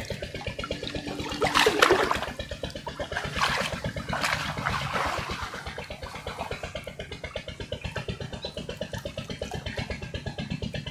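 A small engine running steadily with a fast, even chug, and water splashing twice, a little after a second in and again around four seconds in.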